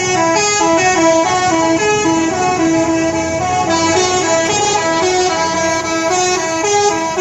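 Telolet horn, a multi-tone musical truck horn, playing a quick tune that steps up and down between a few notes without pause.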